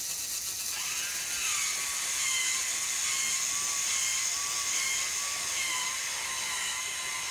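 Small electric winch motor on a competition robot arm whining as it winds in, its pitch wavering slightly. The whine starts about a second in and keeps going over a steady high hiss.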